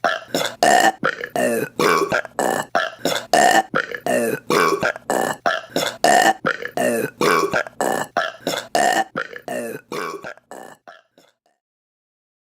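A rapid run of short, loud women's burps, about three a second, each a little different in pitch, growing fainter and dying away after about eleven seconds.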